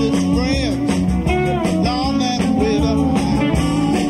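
Live Southern rock band playing, with an electric lead guitar line of bent notes over bass and drums.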